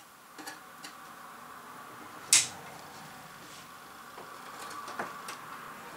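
Light handling clicks as parts and tools are worked at an electronics bench, with one brief sharp scrape about two seconds in, over a faint steady hum.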